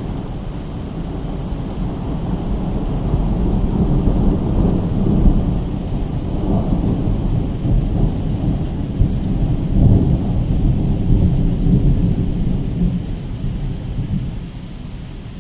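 A long roll of thunder in a rainstorm: a low rumble that swells over the first few seconds, stays loud for several seconds and dies away near the end, with rain behind it.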